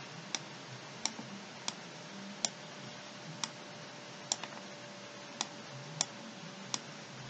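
Computer mouse clicking about ten times at irregular intervals, each a short sharp click, over a faint steady hiss.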